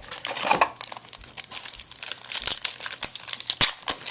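Foil card-pack wrapper being crinkled and torn open by hand, an irregular crackling.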